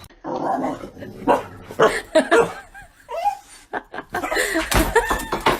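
People laughing and chuckling in short, uneven bursts.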